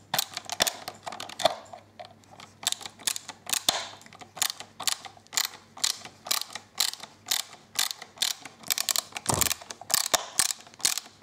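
Hand screwdriver's ratchet clicking over and over as a screw is driven through a plastic gimbal mount plate into a quadcopter's underside, the clicks uneven and about four a second. There is a single low knock about nine seconds in.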